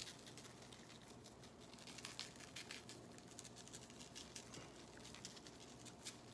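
Faint patter of dry chicken rub shaken from a shaker jar onto raw chicken thighs in a plastic container, a scatter of small, quick ticks.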